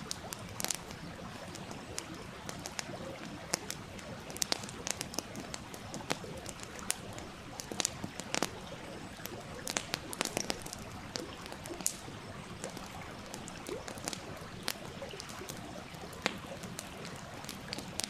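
Wood fire crackling with sharp, irregular pops and snaps over the steady rush of a stream.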